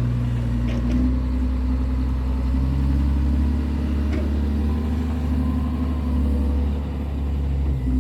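Diesel engine of a wheel loader running steadily under work, its pitch shifting a little now and then, with a couple of faint knocks.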